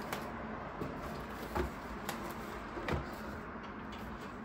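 Cardboard box tray being handled and turned over: a few light knocks and scrapes, two of them louder, about a second and a half and three seconds in, over a steady background hiss.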